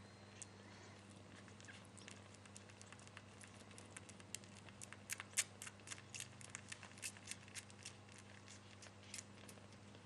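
Kittens suckling at their mother: faint, irregular small wet clicks and smacks that come thickest in the middle, over a steady low electrical hum.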